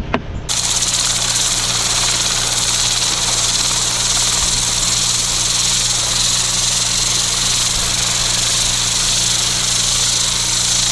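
Pressure washer jet spraying roof tiles during a test clean: a steady hiss that starts about half a second in and cuts off at the end, over the steady hum of the pressure washer's engine.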